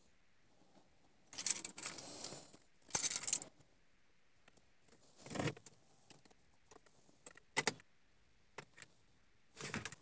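A bunch of car keys and metal keychain charms jangling on the ring hanging from the ignition as a hand handles them, in three short jingles in the first half, the second the loudest, then a few light clicks.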